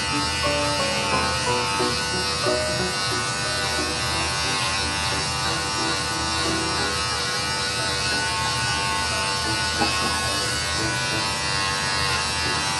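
Corded electric pet grooming clippers running steadily as they shave a long-haired cat's matted coat, with music in the background.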